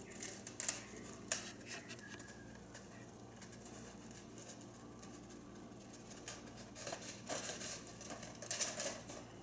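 Faint scratchy clicks and rustles from a pet hedgehog nosing and tugging a plush toy on a hardwood floor, in a cluster near the start and another in the second half.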